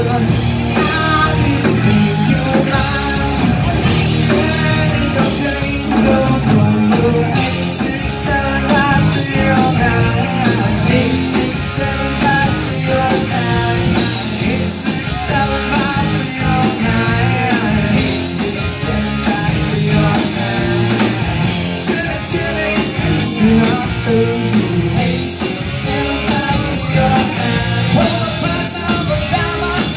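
Live rock band playing electric guitars, bass guitar and drums, with a voice singing over it.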